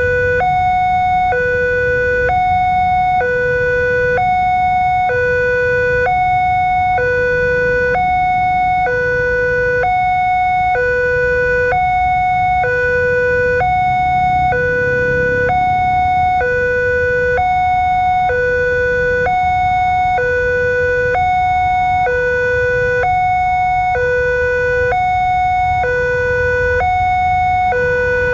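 Electronic railway level-crossing warning alarm sounding a two-tone hi-lo signal: a higher and a lower tone alternate evenly, each held just under a second, like an ambulance siren. Road traffic idles underneath.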